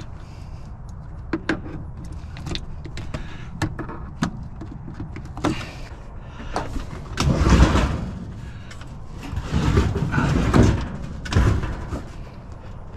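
Handling of a discarded washing machine: scattered knocks and clunks of its metal cabinet, with a few louder rushing, scraping noises from about halfway through.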